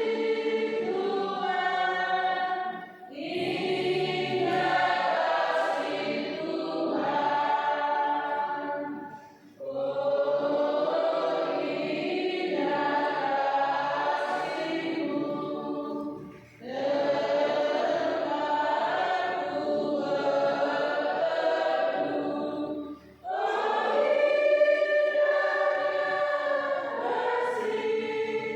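Church choir singing a hymn in long sustained phrases, with short breaks between phrases about every six to seven seconds.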